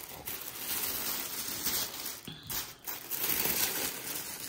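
Tissue paper rustling and crinkling as hands unfold and lift it.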